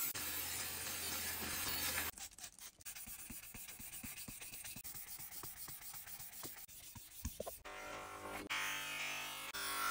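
Thin steel food scraper being sharpened. A steady grinding hiss for about two seconds is followed by some five seconds of the blade being stroked across a whetstone, a soft rubbing with many light ticks. Background music comes in near the end.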